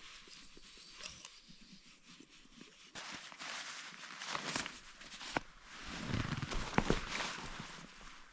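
Footsteps crunching in deep snow, irregular and getting louder from about three seconds in.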